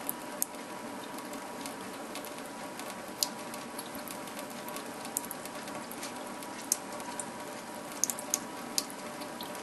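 A thin stream from a kitchen faucet running into a stainless steel sink while two kittens drink from it. It makes a steady hiss, with sharp ticks now and then and a small cluster of them near the end.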